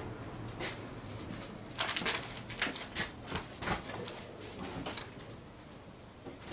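A bristle brush held flat dabbing short strokes of oil paint onto canvas: a run of soft, irregular scrapes and taps, thickest in the middle, over a faint low hum.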